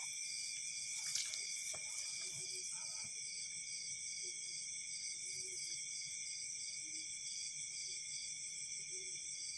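Chorus of night insects trilling steadily in several high pitches at once, one voice beating in quick even pulses about twice a second.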